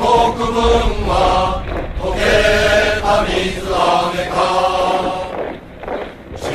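A group of men singing a Japanese song together in slow, chant-like unison, with long held notes and a short break between phrases near the end.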